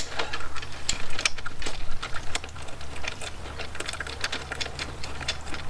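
Bolt and lock nut on a motorcycle luggage-rack bracket being turned by hand: a quick, irregular run of small metal clicks and ticks.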